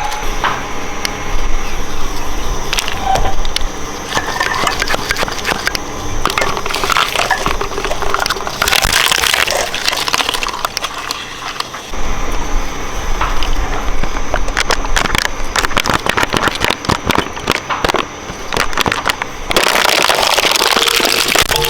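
Shredder crushing brittle material in its cutters: a dense, irregular run of cracking and crackling over the machine's steady running, growing louder about halfway through and again near the end.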